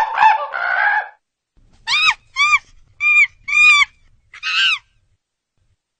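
A bird calling: several overlapping calls in the first second, then five short separate calls about half a second apart, each rising and falling in pitch, stopping well before the end.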